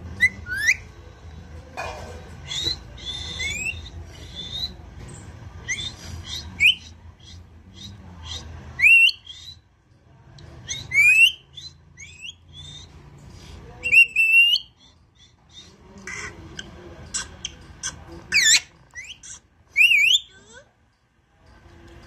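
A ring-necked parakeet gives sharp, rising whistles and chirps in short separate calls, more than a dozen spread through, with several loud ones in the second half.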